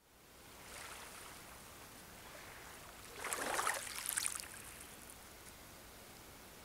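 Small waves washing up onto a sand-and-pebble lakeshore, a steady hiss with one louder wash about three seconds in.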